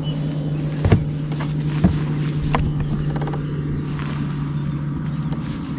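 Boat motor running with a steady low hum, with a few sharp knocks about one, two and two and a half seconds in.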